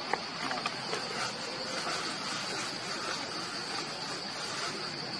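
Steady high-pitched insect drone over a constant hiss, with two sharp clicks in the first second.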